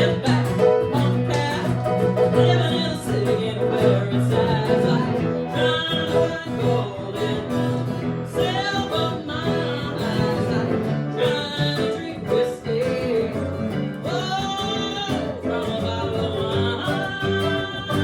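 Live band music, a piano and guitar playing an upbeat rock song, with a voice singing over it at times.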